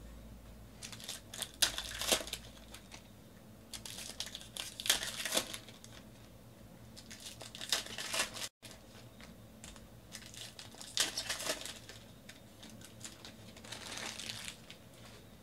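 Foil wrappers of Panini Prizm football card packs being torn open and crinkled by hand, in about five short bursts of crackling.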